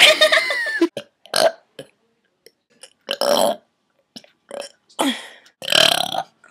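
A person burping on purpose, again and again. A long, loud burp with a wavering pitch opens, followed by several shorter burps.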